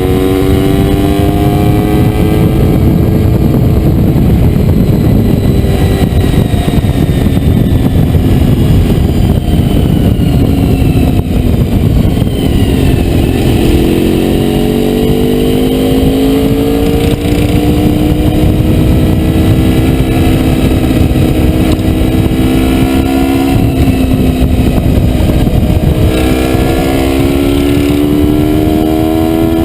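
Honda VFR400R's V4 engine running under way, with wind rushing over the microphone. The engine note sags about twelve seconds in, then climbs again, and rises once more near the end.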